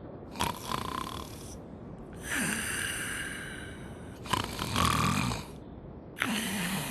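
Animated sleeper's snoring: four long, rasping snore breaths of about a second each, spaced about two seconds apart.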